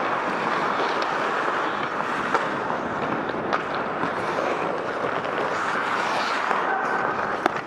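Ice hockey game ambience on an indoor rink: a steady scraping rush of skates on the ice, broken by a few sharp knocks, about three in all.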